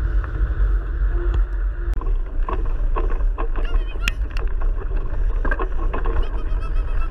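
Wind buffeting the microphone of a handlebar-mounted camera on a moving bike, with the crunch and rattle of the tyres and frame growing busier once the bike runs onto a dirt forest track about two seconds in. A few short high squeaks come through near the middle and near the end.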